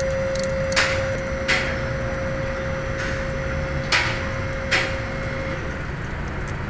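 Hand tools clinking and knocking, about five sharp knocks spread over five seconds, over a steady low background hum and a steady tone that stops about five and a half seconds in.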